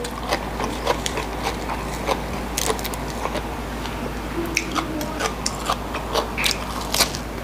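Close-miked chewing and crunching of a crisp lettuce wrap: irregular crisp crunches and wet mouth clicks, several a second, over a faint steady hum.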